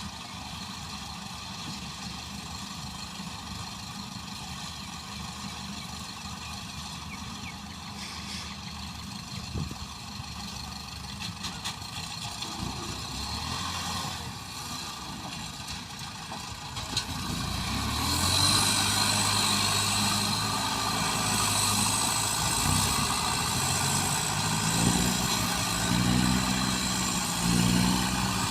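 Farm machine engines running steadily. About 17 seconds in, one gets suddenly louder and closer, its engine note rising and falling under load.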